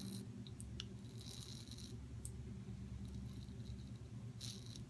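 Gillette Fat Handle Tech safety razor scraping across stubble in short strokes, faint, with a couple of light clicks, over a steady low hum.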